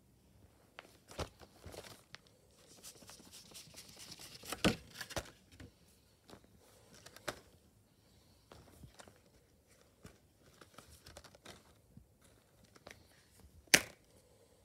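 Plastic Blu-ray case being handled and turned over on a fabric bedspread: quiet rustling and scattered soft clicks and knocks. A single sharp click near the end as the case is snapped open.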